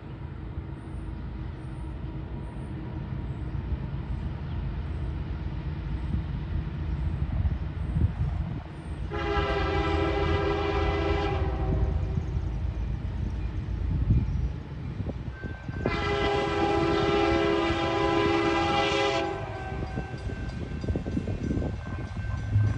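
A fouled Nathan K5LA five-chime locomotive air horn that sounds like a three-chime K3LA, blowing two blasts: one of about two seconds, then a longer one of about three seconds. Under it is the low rumble of the approaching diesel-electric freight locomotives.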